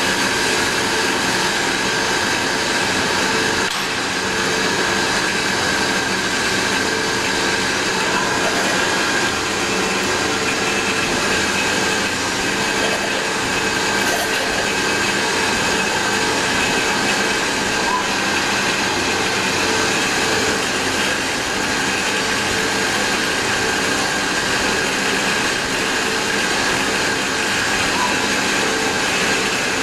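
Nakamura-Tome NTJ-100 CNC turning center machining a stainless steel ball with a live milling tool under flood coolant. Steady machining noise with a constant whine.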